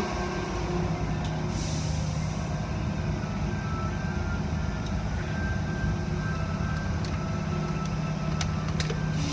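Automatic car wash machinery running behind a viewing window: a steady low hum from the motors with the wash and swish of spinning red-and-blue cloth brushes and water spray, and a short hissing burst about one and a half seconds in.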